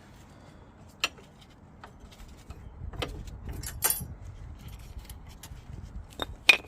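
Brake pads being worked out of a disc-brake caliper carrier: a few separate sharp metal clinks, with a double clink near the end the loudest.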